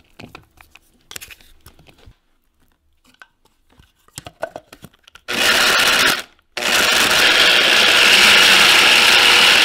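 Electric blade coffee grinder chopping fresh ginseng and dried jujubes: a few light clicks and scrapes of handling, then a short burst of about a second, a brief stop, and a steady run of about three seconds.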